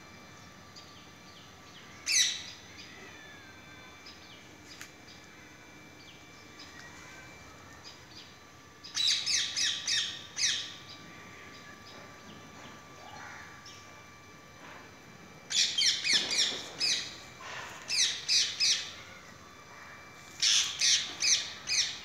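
Green parakeet calling: one short call about two seconds in, then bursts of five or six rapid, high, repeated calls around nine seconds, from about fifteen to nineteen seconds, and again near the end.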